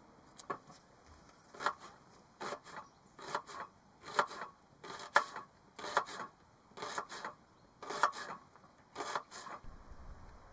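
A fixed-blade knife slicing a peeled onion on a wooden cutting board: about ten slow cuts, each a crisp crunch through the onion ending in a tap on the board.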